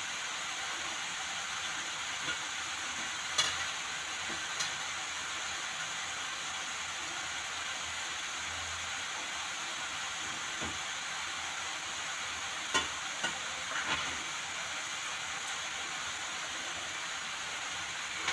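Grated carrot frying in ghee in a pan, a steady sizzle throughout, with a few sharp clicks now and then.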